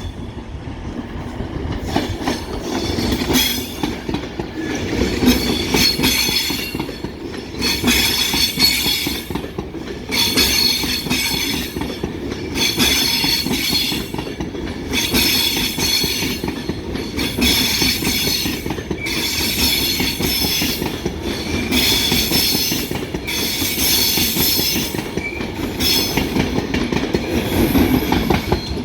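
Model railway trains running round the track: a steady rumble of wheels on rail, with bursts of clatter and squeal repeating about every two seconds.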